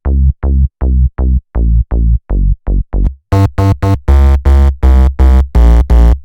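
Yamaha CP4 Stage keyboard playing an electronic synth patch: a run of short, staccato bass notes, about three a second. A little past halfway a fuller drum-machine beat joins in.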